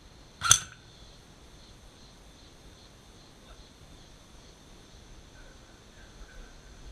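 A single sharp shot from an airsoft gun about half a second in, over a steady high-pitched insect drone.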